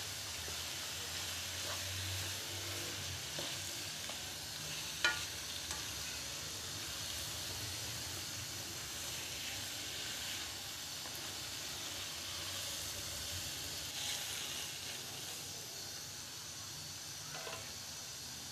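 Minced meat sizzling in a nonstick wok as it is stirred with a slotted spatula: a steady frying hiss with scraping, while the pre-fried mince is mixed into the spiced masala. A sharp tap about five seconds in.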